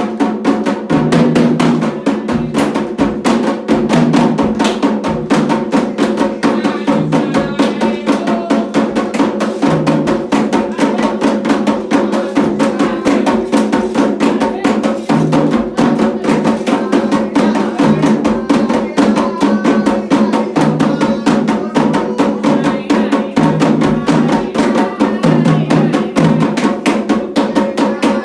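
Candomblé ritual drumming: atabaque hand drums playing a fast, dense, steady rhythm, with voices singing faintly at times under the drums.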